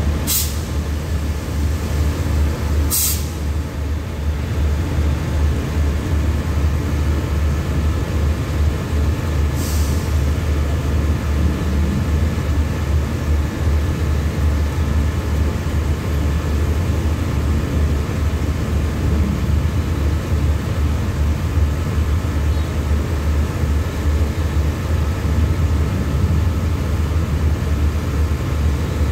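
Diesel-electric locomotive of the CRRC Qishuyan QSY class standing at the head of a passenger train, its engine idling with a steady low hum. Short, sharp hisses of released brake air come three times: at the start, about three seconds in and about ten seconds in.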